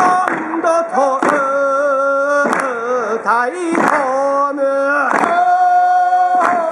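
A singer holding long, slightly wavering notes of a slow folk-style song, with a sharp clap about every second and a quarter, about five in all.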